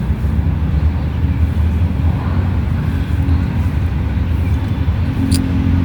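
Steady low rumble of road traffic, with one brief click near the end.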